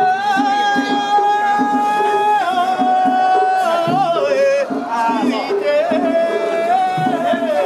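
Japanese festival music: a single high melodic line holding long notes, stepping down and bending in small turns about halfway through, over a steady rhythm of low drum beats.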